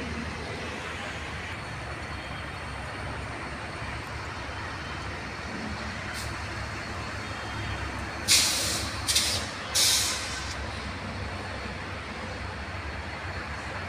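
Air brakes hissing three times in quick succession, short loud releases of compressed air a little past halfway, over a steady low rumble of distant traffic.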